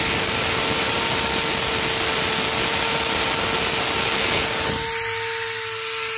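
Portable on-site crankshaft grinding machine working on a journal of a MAN B&W 9L27/38 engine crankshaft: a steady motor whine over a harsh rushing grinding noise. About three-quarters of the way through the rushing drops away, leaving the whine and a low hum.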